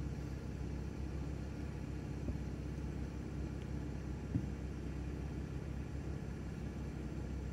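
Outboard motor idling steadily with an even low rumble, and a single knock about four seconds in.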